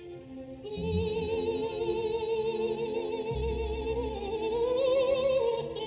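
Background music: a singing voice with strong vibrato holds long notes, coming in about a second in and climbing in pitch near the end, over low bass swells.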